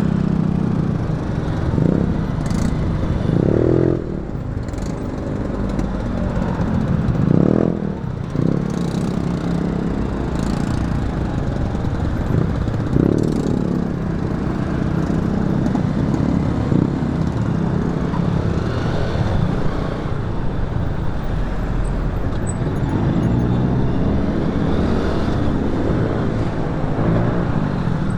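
Motorcycle riding in road traffic: a steady engine hum mixed with traffic noise. Engine pitch rises briefly a few times, around 3 s, 7 s and 13 s in.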